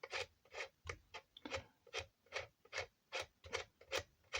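Light, sharp clicks repeating fairly evenly, about two to three a second.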